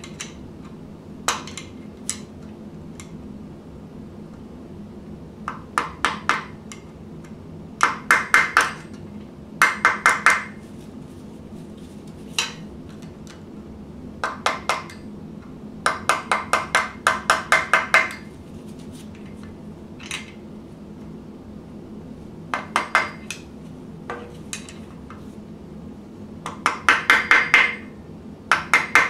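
Steel screwdriver tapping and levering the steel lock tabs over the cam timing-gear bolt heads on a Ford flathead V8, folding the tabs to lock the bolts. It sounds as quick runs of sharp metallic taps, about five a second, in short bursts with pauses between.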